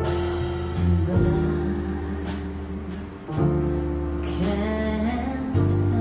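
Recorded music played from CD through Boston Acoustics M350 tower loudspeakers, heard in the room: sustained notes over a strong bass line that changes about every two seconds.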